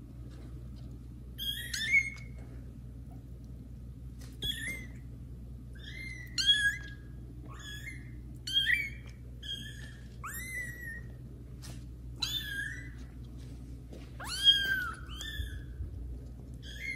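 A young kitten meowing loudly and repeatedly: about a dozen short, high-pitched meows, several rising then falling in pitch, coming every second or two.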